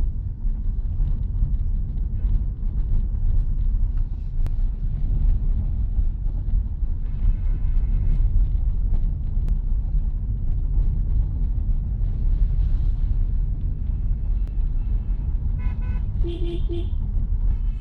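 Steady low rumble of a car's engine and tyres heard from inside the cabin on a steep downhill road, with short vehicle-horn toots about halfway through and again near the end.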